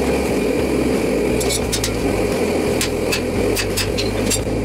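Propane forge burner running with a steady rush, with several light metallic clinks and taps from tongs and tools at the anvil.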